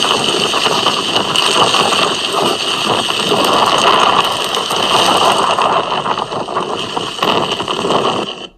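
Strong wind buffeting the microphone in a snowstorm: a loud, continuous rushing roar that cuts off suddenly near the end.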